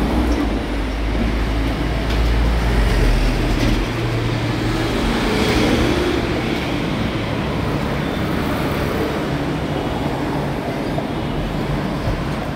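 Steady city street traffic noise heard while walking along a sidewalk, with a heavy low rumble for the first four seconds that then eases.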